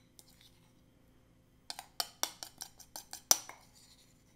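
A metal spoon scraping and knocking against the inside and rim of a small bowl as the dressing is scraped out: a quick run of about eight clinks starting a couple of seconds in, the loudest near the end.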